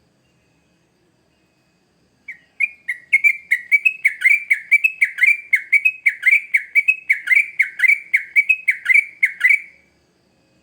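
Sooty-headed bulbul singing a quick run of repeated whistled notes, each slurring downward, about three a second. The song starts about two seconds in and stops near the end.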